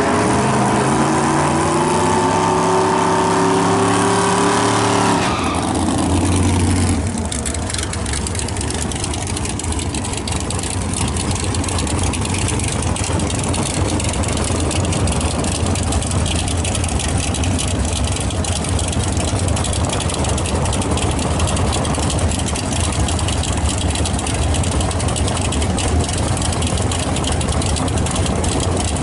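Drag car's engine held at high revs for about five seconds, the sound of a burnout. It then drops to a loud, rough, lopey idle that runs on while the car creeps up to the line.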